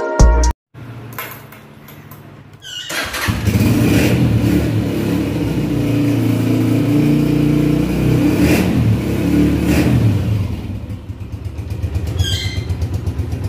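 Air-cooled single-cylinder motorcycle engine starting about three seconds in and running fast for several seconds, then dropping back to an even idle with a regular putting beat near the end.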